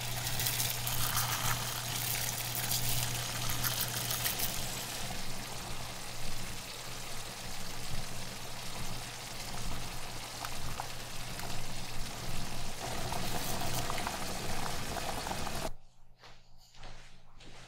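Water running steadily from a kitchen tap, with a low hum under it, cut off suddenly near the end, followed by a few faint clicks.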